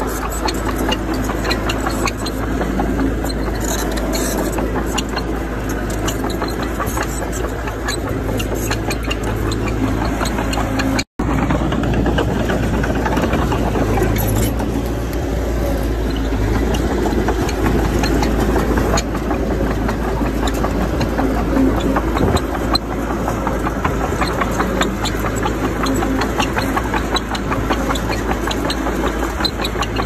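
Diesel engine of earthmoving machinery running steadily under work, with frequent small clanks and rattles. The sound cuts out for an instant about eleven seconds in.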